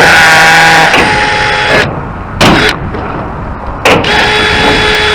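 Power drill running in bursts into concrete, with a steady motor whine: a run of nearly two seconds, a short burst, then another long run near the end.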